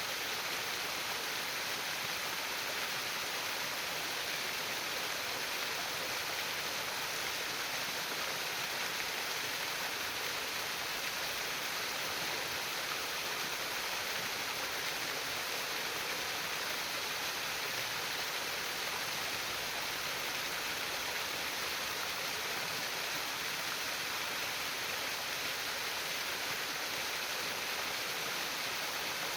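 Flowing water trickling and splashing in a constant, even rush, with no breaks or separate events.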